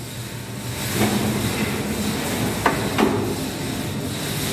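Semi-automatic paper cutting machine making a motor-driven cutting stroke: the drive starts running with a low hum about a second in, and two sharp knocks come close together about two-thirds of the way through as the blade works through the paper stack.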